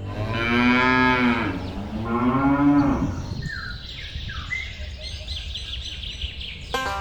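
Cow mooing twice: a long call and then a shorter one, each bending up then down in pitch. Faint bird chirps follow, and music comes in near the end.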